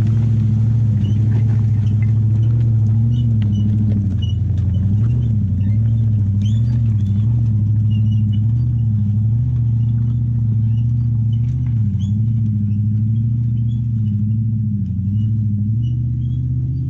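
Four-wheel-drive vehicle's engine running steadily while driving a rough track, a constant low drone whose revs rise and fall slightly, with faint scattered ticks.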